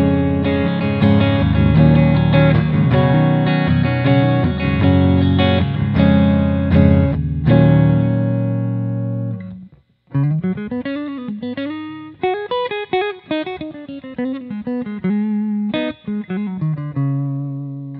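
Godin A6 hybrid electric-acoustic guitar on its humbucker pickup, played through a Fender Hot Rod Deluxe amp. Strummed chords ring out and fade about nine to ten seconds in, followed by single-note lines with bends.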